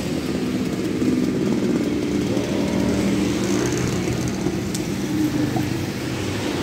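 A small engine running steadily, its pitch wavering a little.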